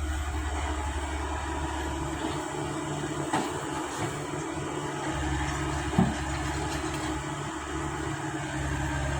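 Komatsu excavator's diesel engine running during dump-truck loading: a low drone that falls away about three seconds in and comes back a couple of seconds later, with two sharp knocks, at about three and six seconds in.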